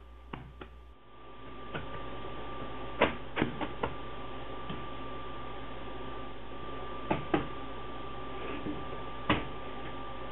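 Hands stretching and folding a large mass of potato bread dough on a wooden butcher-block table, with several short knocks as the dough is lifted, flopped over and pressed down. A steady hum with a faint high whine runs underneath.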